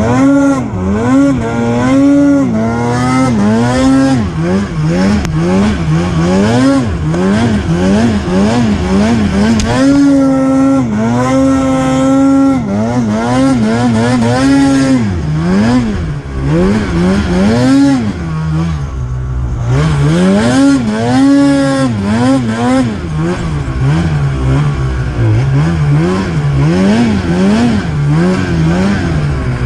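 Snowmobile engine revving up and down again and again as the throttle is worked, its pitch rising and falling every second or two, with a few longer steady stretches at high revs.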